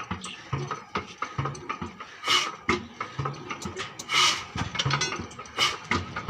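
Old Ruston Hornsby 22 HP stationary diesel engine turning slowly during a hard start, a regular low thud about twice a second under clicking and clattering of its mechanism. Two loud hissing bursts come about two and four seconds in.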